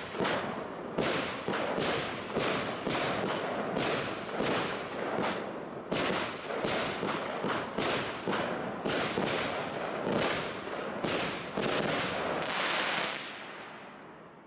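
Startrade 'Cross Over' 25-shot firework battery firing shot after shot, about two sharp bangs a second. Near the end comes a denser crackling salvo as the finale, which then dies away.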